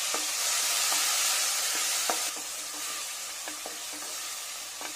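Chopped tomato and onions sizzling in hot oil and ghee in a pressure cooker while a wooden spatula stirs them, with a few faint knocks of the spatula against the pot. The sizzle eases a little about halfway through.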